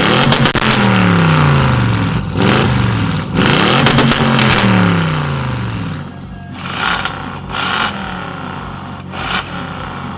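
Audi RS6 C7's twin-turbo V8 through a straight-piped custom exhaust, revved hard twice, each rev falling back down. It then settles to a loud idle broken by a few sharp crackles.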